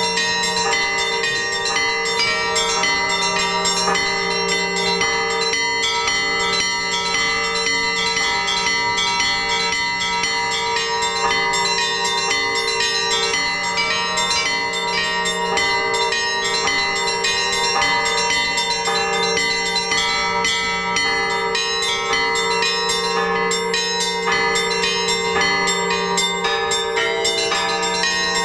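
Orthodox church bells rung together in a trezvon. Several small bells chime in quick succession over the steady tones of larger bells, without a pause.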